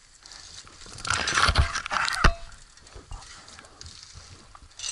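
Dry straw crunching and rustling right against the microphone as the player shifts in a straw pile, loudest about a second in, with two thumps in quick succession about two seconds in.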